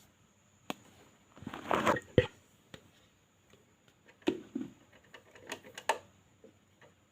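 A pet hamster moving about in its cage: scattered sharp clicks and short bursts of scratchy rustling, the loudest about one and a half to two seconds in, with more clicks around four and six seconds.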